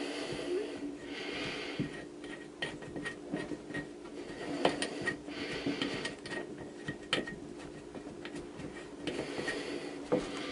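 Tongue-and-groove pliers working the compression nut off an old water shutoff valve: irregular metal clicks and scraping as the jaws grip and turn the nut, over a steady low hum.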